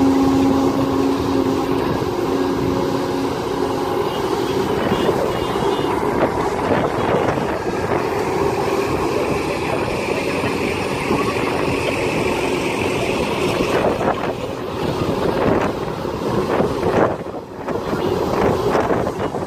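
Kobelco SK200-10 hydraulic excavator working: its diesel engine runs steadily under load while the hydraulics dig and swing. Near the end comes a series of knocks as dirt and rocks are dumped from the bucket into a dump truck.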